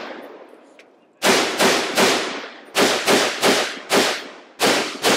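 Semi-automatic .308 AR-10 rifle (Palmetto State Armory PA-10) firing quick strings of shots: three, then three more, then two near the end. Each shot is sharp and rings off with a short echo.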